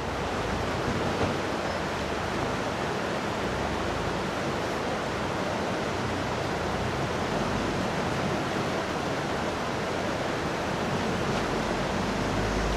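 Fast-flowing creek water rushing over rocks, a steady, unbroken wash of noise.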